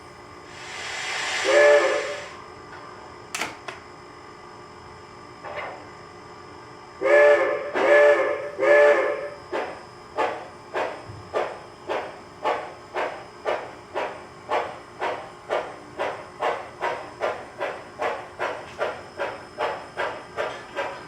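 Model steam locomotive's DCC sound decoder playing a rising steam hiss that ends in a short whistle toot, then three whistle toots a few seconds later. Steady chuffing at about two chuffs a second starts about ten seconds in.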